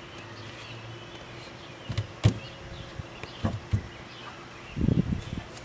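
Bare feet thudding on wooden deck steps: a few soft low thumps, the sharpest about two seconds in and a quick cluster near the end, over faint birdsong.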